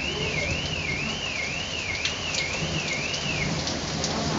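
Heavy rain pouring steadily on a street and pavement during a hailstorm, with a few sharp ticks. Over it, a high warbling alarm rises and falls about twice a second and cuts off about three and a half seconds in.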